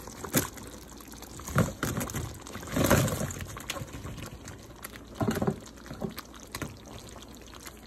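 Cornstarch-thickened General Tso sauce boiling in a wok, a steady crackle of small bubbles popping, with a few louder wet sloshes about a second and a half, three, and five seconds in.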